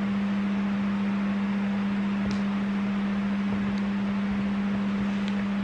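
Electric fan running: a steady hum with a constant rush of air.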